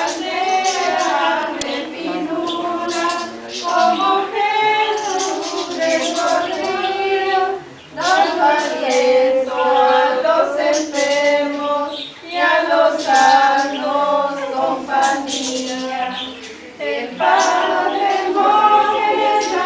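Group of women and girls singing a devotional song together, with short breaks between phrases.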